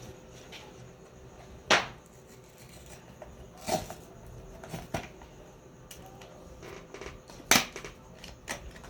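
Cardboard blind box being handled and opened: scattered rustles and light taps, with two sharp snaps, one about two seconds in and the loudest near the end.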